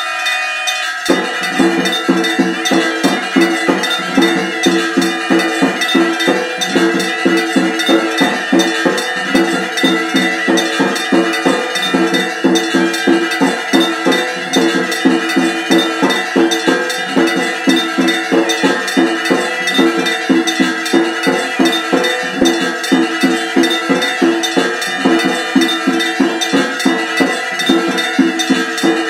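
Temple bells struck rapidly and steadily, several strikes a second, their ringing tones running together without a break.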